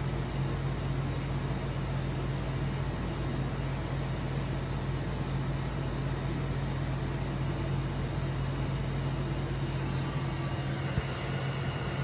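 xTool D1 laser engraver with a 20 W head running a job on an RA2 rotary: a steady hum of its cooling fan, air assist and motors while it engraves a painted glass.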